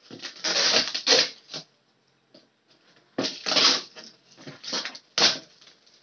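Packing tape being peeled and ripped off a cardboard gift box in several short ripping bursts, with a pause of about a second and a half in the middle.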